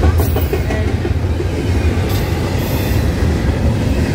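Double-stack container freight train rolling past close by at speed: a steady, loud rumble of the well cars' wheels on the rails. A brief high hiss comes near the start and again around two seconds in.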